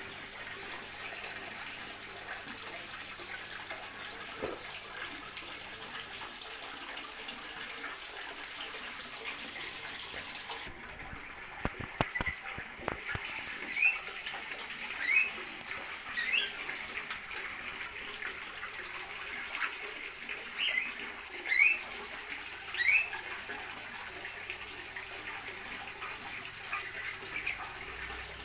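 Small aviary birds chirping: short upward-sliding calls repeated every second or so through the second half, over a steady hiss, with a few sharp clicks a little before the calls begin.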